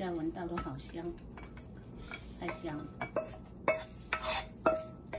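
Wooden spatula scraping stir-fry out of a nonstick wok onto a plate, with a series of sharp knocks, several near the end ringing briefly.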